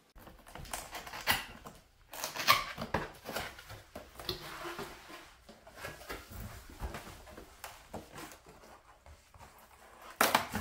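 Cardboard appliance box being opened by hand: irregular rustling and scraping of the flaps and packing, with a few louder scuffs, the loudest near the end.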